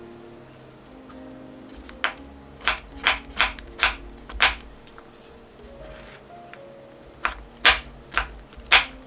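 Kitchen knife chopping white button mushrooms on a wooden cutting board: a run of six sharp knife strikes on the board a couple of seconds in, then four more near the end, over soft background music.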